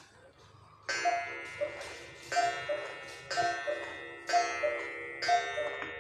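Schatz 8-day mechanical cuckoo clock striking five: five cuckoo calls about a second apart, starting about a second in, each a high note followed by a lower one from the bellows pipes, together with a ringing gong stroke.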